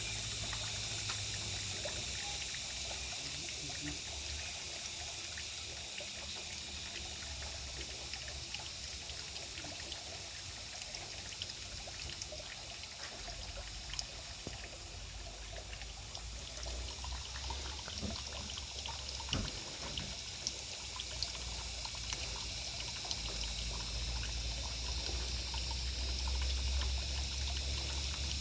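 Water trickling and pouring steadily, with scattered small ticks and a low rumble that grows louder near the end.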